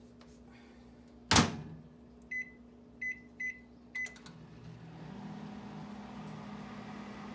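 Microwave oven door shut with a knock, then four short keypad beeps as the time is entered, and the microwave starts running with a steady hum.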